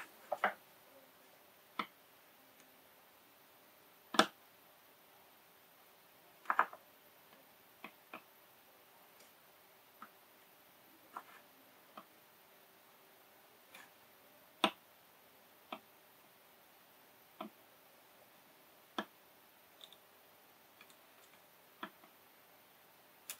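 Faint, irregular small clicks and taps, roughly one a second, as a soldering iron tip and solder wire touch a small surface-mount circuit board on a tabletop while its pads are pre-tinned with solder.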